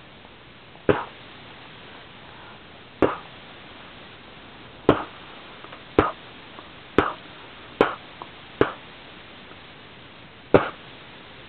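A person making sharp 'pa' lip pops, each a hard puff of breath, about eight times at irregular intervals of a second or two.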